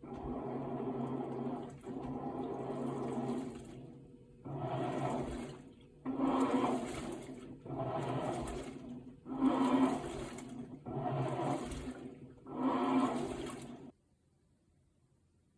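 Washing machine agitating: water churns and sloshes in even surges of about a second and a half each, eight in all, then stops shortly before the end.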